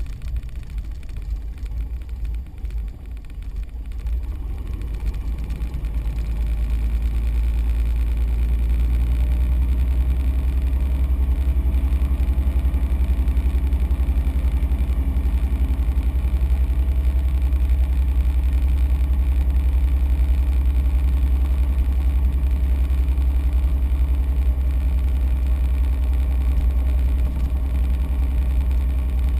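Small propeller aircraft's engine running with a steady low drone. It grows louder over the first several seconds, then holds even.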